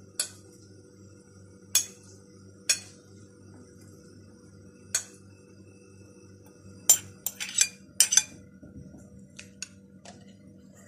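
Metal spoon clinking against a glass plate and bowl as minced meat and onion are scraped and mixed: a few single clinks spaced a second or more apart, then a quick cluster of clinks about seven to eight seconds in, over a faint steady hum.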